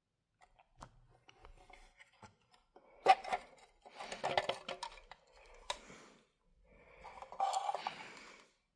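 Handling noise from the red plastic housing of a Clifford & Snell Yodalarm sounder as it is opened: scattered clicks and knocks of plastic parts with stretches of scraping and rustling, the loudest a sharp knock about three seconds in. The alarm itself is not sounding.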